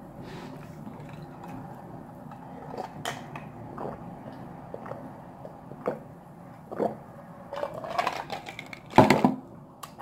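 Close-up eating sounds from a seafood ramen meal: chewing and mouth sounds with scattered small clicks of utensils and dishes, and one louder knock about nine seconds in.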